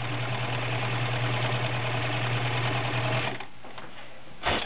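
Kenmore 1318 sewing machine running steadily at speed, stitching a three-point zigzag through fabric, then stopping a little over three seconds in. A single sharp click follows near the end.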